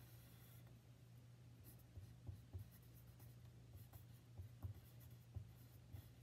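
Pencil drawing and writing on a sheet of paper: faint scratching strokes and soft taps, more of them from about two seconds in, over a low steady hum.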